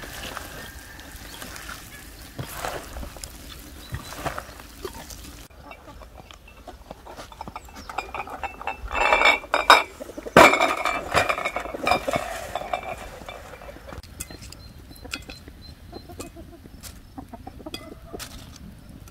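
Empty glass jars on a metal tray clinking together, with a sharp knock about ten seconds in as the tray is set down on a wooden table. Chickens cluck in the background.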